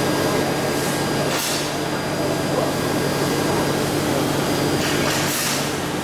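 Steady foundry machinery drone with a constant low hum, broken by two short hissing bursts, about a second and a half in and again near the end.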